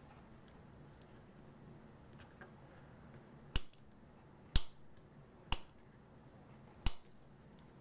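Four sharp clicks, roughly a second apart, over a faint steady background hiss; the clock radio's speaker gives out no sound.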